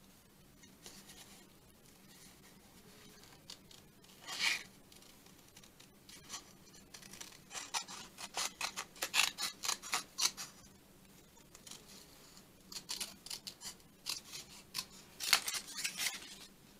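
Small craft scissors snipping paper while cutting out an image, in runs of quick short snips, busiest through the middle and again near the end.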